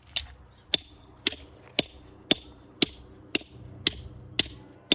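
Steady, evenly spaced hammer blows on stone, about two a second, each with a short bright ring: stone being dressed by hammer.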